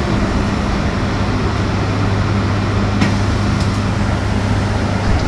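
Electric bus driving, heard from inside the passenger cabin: steady road and tyre noise with a low, even hum. There is a faint click about three seconds in.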